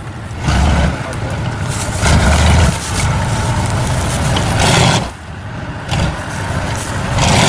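Lifted full-size SUV on big mud tyres, engine revving hard in about four surges as its tyres spin and dig into the dirt. It is straining against a tow strap to pull a stuck vehicle free.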